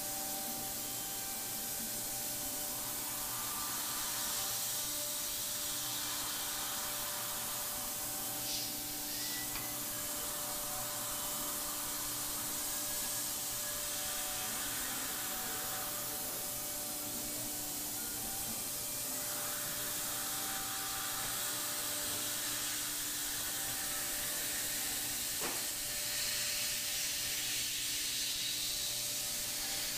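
Thermwood five-axis CNC router running through its machining program on a polyethylene part: a steady hiss with hum tones that come and go as the head moves, and a couple of brief clicks.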